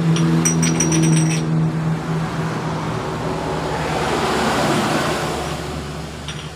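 A motor vehicle engine running close by: a steady hum that swells and fades over a few seconds as it passes. Light metallic clinks in the first second and a half, from engine parts being handled.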